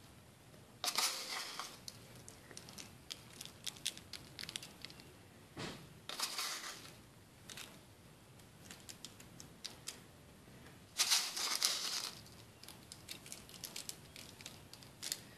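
Toasted sesame seeds sprinkled by hand over an egg-washed pastry pie on a metal pan: many small scattered ticks of seeds landing, with three louder brief rustles about a second in, around six seconds and around eleven seconds.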